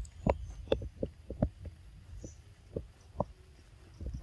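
Irregular soft knocks and thumps, about eight close together in the first second and a half and a few more spaced out after, over a steady low rumble.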